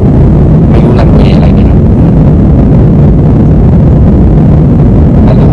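Steady, loud cabin noise of a Thai Smile Airbus A320 in flight, heard from a window seat over the wing: jet engines and rushing air making a deep, even roar.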